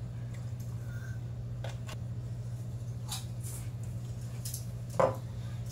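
Light clicks and knocks of containers and utensils handled on a kitchen counter, with a louder short knock about five seconds in, over a steady low hum.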